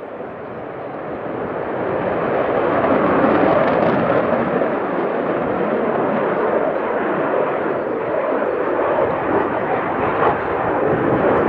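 Aircraft engine noise, a continuous rush that swells over the first few seconds and then holds steady.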